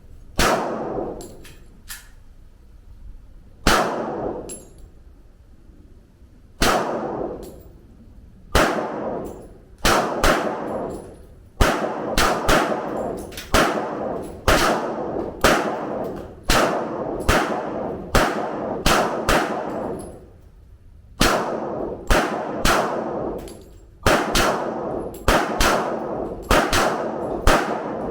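Gunshots fired one after another, each followed by a ringing echo. A few spaced shots at first, then a steady run of about two shots a second from about twelve seconds in, about thirty in all.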